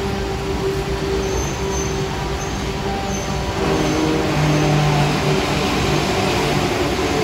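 Coal train cars rolling past on the rails, a steady rumble of wheels on track with low humming tones that shift and grow a little louder about halfway through.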